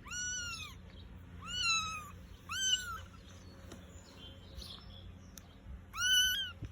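Young kittens mewing: four short, high-pitched mews, each rising then falling in pitch.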